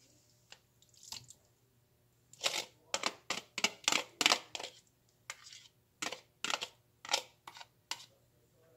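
Drained beans being tapped and scraped out of a plastic strainer into a glass mixing bowl: a quick run of sharp clicks and knocks of plastic and utensil against glass, starting about two seconds in and going on for several seconds.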